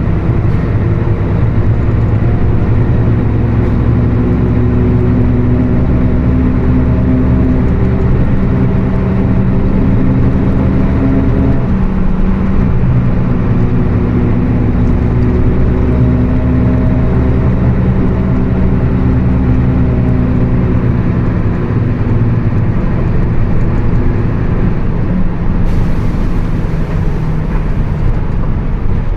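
Mercedes-Benz OF 1724 BlueTec 5 bus under way, its engine and drivetrain running with a loud growl from the differential. The drone breaks off briefly about twelve seconds in, then carries on.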